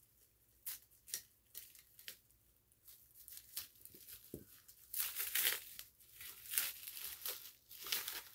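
Packaging being unwrapped by hand: scattered crinkles and rips, sparse at first, then louder and denser from about five seconds in.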